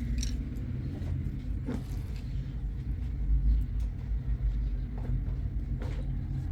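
Low steady mechanical rumble, like a running engine or motor, with a few faint clicks.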